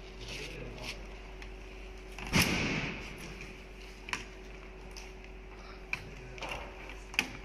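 Leather sheet and plastic sewing template being handled and set in place: a thump with a short rustle about two and a half seconds in, then three sharp clicks spread over the rest, over a steady hum.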